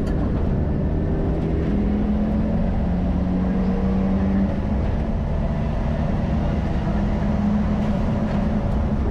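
Subaru Impreza Group N rally car's turbocharged flat-four engine at full acceleration, heard from inside the cabin over road and tyre noise. The engine note climbs through a gear, dips briefly at an upshift about four and a half seconds in, then climbs again.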